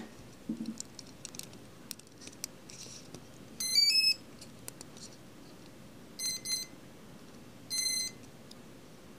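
Electronic beeps from a multirotor's electronics: a quick rising three-note tune about four seconds in, then two short beeps and one longer beep, all high-pitched. Faint handling clicks come before them.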